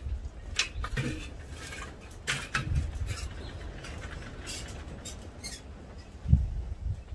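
Scattered light knocks, clinks and scrapes of gloved hands handling the Dutch oven and grill gear, with one dull thump about six seconds in.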